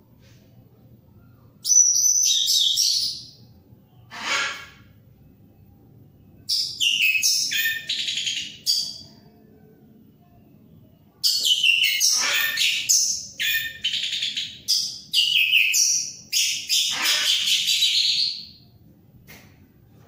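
Orange-headed thrush (anis merah) singing in bursts of rapid, varied high-pitched phrases, with short pauses between and a long unbroken run of about seven seconds in the second half; a bird in full, vigorous song.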